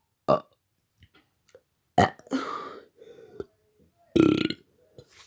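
Repeated deliberate burps: a short one right at the start, a louder one about two seconds in that trails off, and another a little after four seconds, with quiet gaps between.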